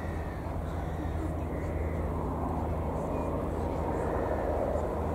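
De Havilland DH.89 Dragon Rapide biplane flying past, its two Gipsy Six six-cylinder engines giving a steady low drone.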